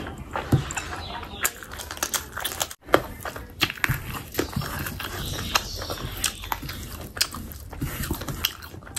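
Close-miked wet chewing and lip-smacking of a mouthful of fatty pork curry and rice, with many irregular sticky clicks. The sound cuts out for an instant about three seconds in.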